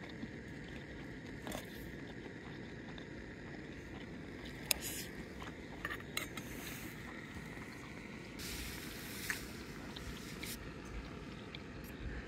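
Faint outdoor ambience with a steady low rumble, broken by a few light clicks and scrapes of a metal spoon against a stainless steel camping bowl.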